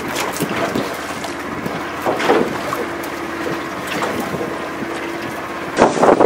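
A boat under way: a steady motor hum under rushing wind, with wind buffeting the microphone in gusts about two seconds in and again near the end.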